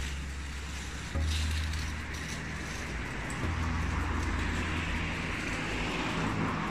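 Background music with deep sustained bass notes that change about every two seconds, over a steady rushing noise.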